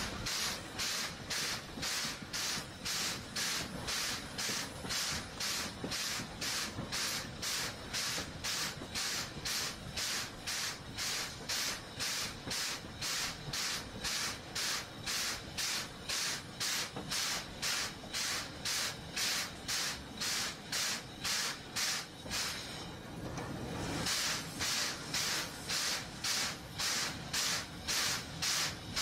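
Steam locomotive exhaust chuffing in a steady rhythm of about two hissing beats a second. For about a second a little past the three-quarter mark the beats fade under a lower rumble, then pick up again.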